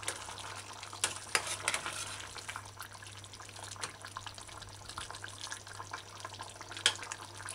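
A metal spoon stirring thick stew in a metal saucepan, with scattered scrapes and light clinks of the spoon against the pot over the steady hiss of the simmering stew and a low steady hum.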